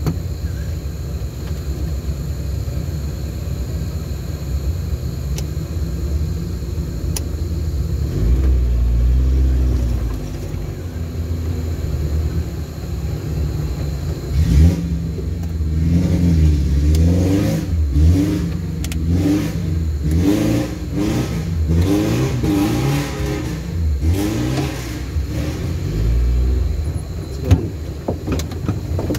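Off-road vehicle engine running under load, first at a steady rumble, then revving up and down again and again from about halfway through, with a few sharp knocks.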